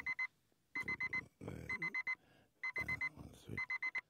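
Digital alarm clock beeping in quick groups of four, about one group a second, with rustling movement between the groups; the beeping stops abruptly at the end.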